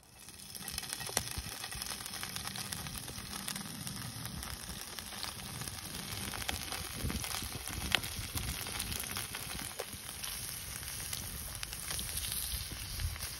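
Campfire burning, crackling and hissing steadily, with sharp pops now and then.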